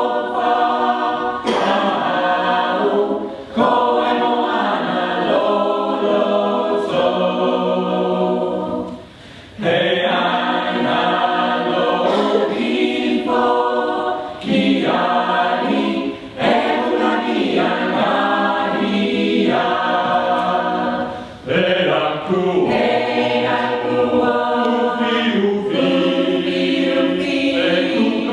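Mixed choir of men and women singing a cappella, in sung phrases with short breaks between them and a brief pause about nine seconds in.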